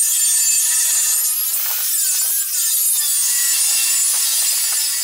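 Angle grinder with a cutting disc cutting through a steel plate: a loud, steady, high-pitched grinding screech whose pitch wavers as the disc bites into the metal.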